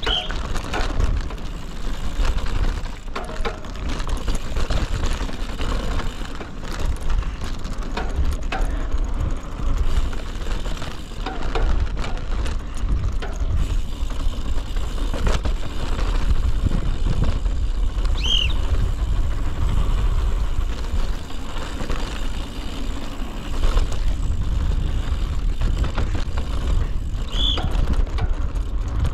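Mountain bike riding down a dirt downhill trail, heard close from an on-board action camera: tyres on rough ground, the bike rattling and clicking, with a heavy low rumble of wind on the microphone. A brief high squeak sounds three times: near the start, about halfway, and near the end.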